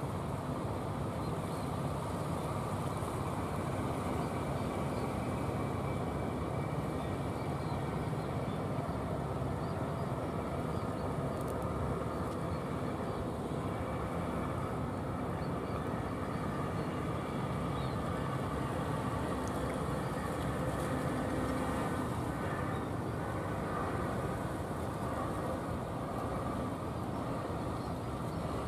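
Engine of a wooden fishing boat running with a steady drone as the boat comes in under way.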